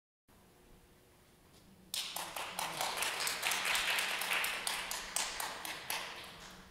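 Audience applause, starting about two seconds in and dying away near the end, thin enough that single claps stand out.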